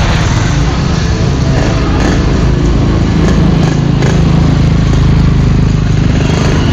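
Yamaha RX-King two-stroke motorcycle engine running steadily through its exhaust, whose baffle has been bored out for a crisp, snoring 'garing ngorok' tone.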